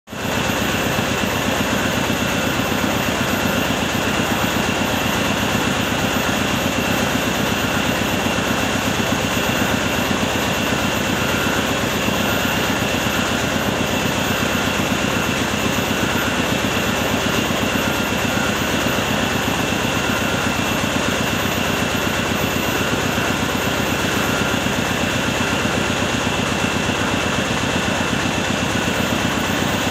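Mobile rice mill running steadily: its engine and milling machinery going at an even speed, with a steady high whine over the engine rhythm.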